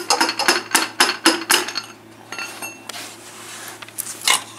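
Metal tools and engine parts clinking and knocking together as a piston and connecting-rod cap are taken out of a Mercedes M110 engine: about a dozen sharp clanks in quick succession in the first two seconds, a brief metallic ringing in the middle, then another clank near the end.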